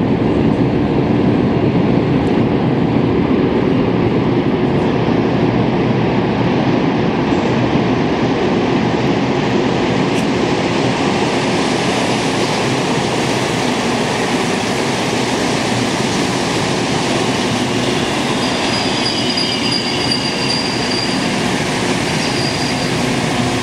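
Montreal Metro MR-73 rubber-tyred subway train pulling into the station: a loud, steady rumble of the running gear echoing in the station, joined by a high whine with falling tones as the train slows, near the end.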